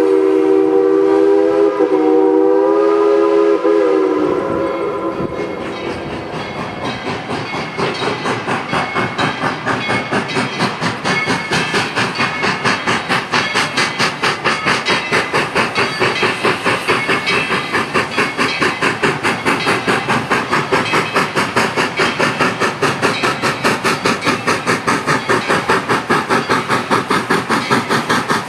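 Narrow-gauge steam locomotive blowing its whistle for about four seconds, then its exhaust chuffing in a steady, even beat of about three to four beats a second as it works its train toward the camera.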